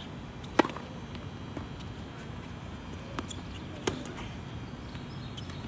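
Tennis ball impacts on racket strings and court: a sharp pop about half a second in, fainter pops around a second and a half and three seconds, and a second sharp pop near four seconds.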